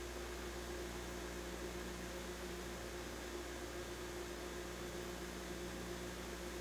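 Steady electrical hum with a constant hiss and nothing else: the recording's own background noise in a quiet room.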